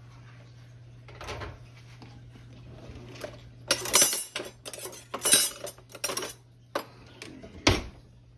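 Kitchen utensils and dishes clinking and knocking on a counter as a metal spoon and a flour container are handled. The sounds come as a string of short, sharp clatters, busiest in the second half.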